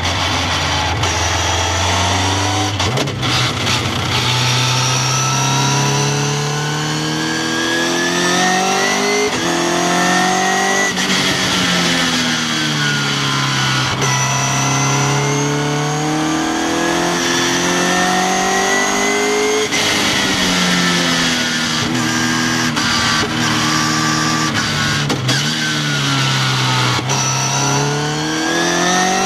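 Westfield open sports car's engine heard from the cockpit on a track lap, its note climbing under acceleration and falling away repeatedly when lifting and braking for corners, over a rush of wind past the open cockpit.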